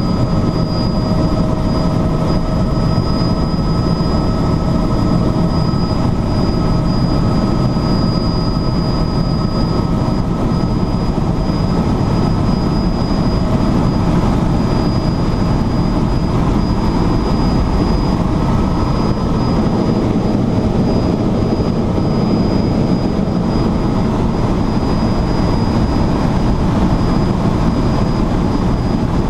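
Helicopter in flight: loud, steady rotor and engine noise with a thin, constant high whine.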